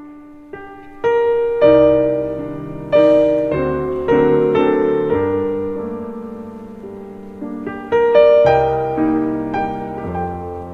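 Piano playing an instrumental passage, chords struck and left to ring, with no singing. It comes in softly and grows louder about a second in, easing off toward the middle and swelling again near the end.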